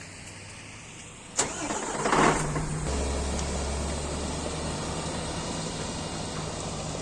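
An engine being started: a sharp knock, a brief crank, then the engine catches about three seconds in and runs steadily at a low idle.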